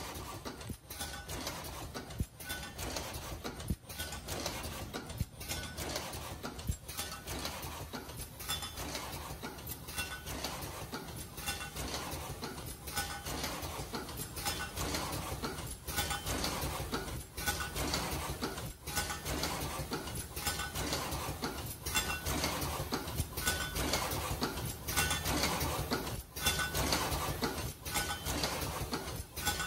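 Automatic ear-loop face-mask making machine running: a steady mechanical clatter with short high squeaks, in a working cycle that repeats about every second and a half.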